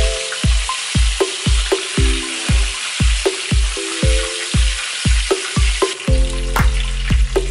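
Breaded chicken frying in hot oil in a skillet, a steady sizzle, over background music with a steady drum beat about twice a second. About six seconds in, the sizzle drops back as the music's bass grows fuller.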